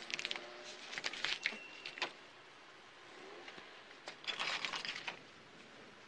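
Small handling sounds of a glass cream jar: a few light clicks and knocks, then about four seconds in a scratchy rasp lasting about a second as the lid is twisted open.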